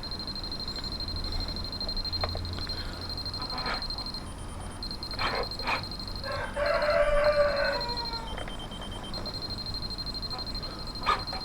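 A rooster crowing once around the middle, a pitched call lasting about a second and a half, with a few short calls before and after it. A steady high-pitched tone runs underneath.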